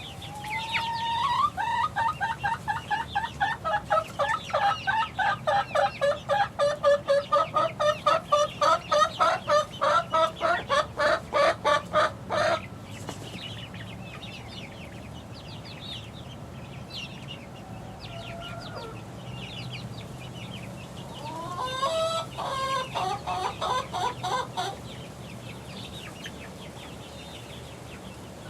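Young chickens calling: a loud, rapid run of repeated calls, about four a second, that stops abruptly about twelve seconds in. Softer scattered cheeps follow, then a second, shorter run of calls a little over twenty seconds in.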